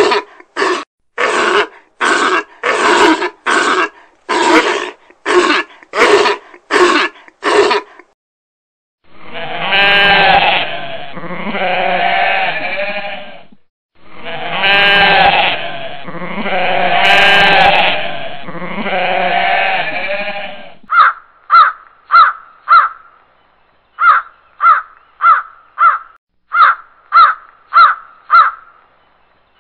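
A seal barking in a fast run of short barks, then a goat bleating four long, wavering bleats, then a crow cawing in quick runs of short caws.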